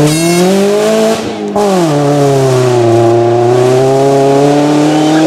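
Rally car engine accelerating hard, its note climbing. About a second in, a short break and a drop in pitch for an upshift. It then holds a steady note.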